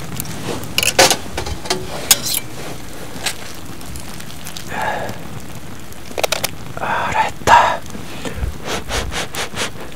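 Roast chicken sizzling in a foil-lined cast-iron Dutch oven over a fire: a steady crackling hiss with a few sharp clicks. A fork scrapes and rustles against the foil as it pulls the meat apart, a few seconds in.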